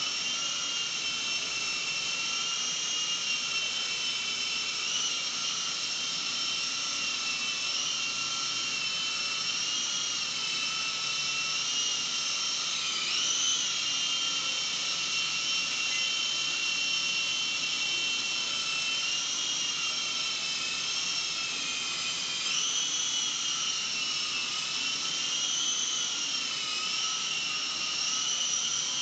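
Small RC helicopter flying: a steady high-pitched whine from its motor and rotor that wavers slightly in pitch. The pitch dips briefly and recovers about 13 seconds in, and again about 22 seconds in.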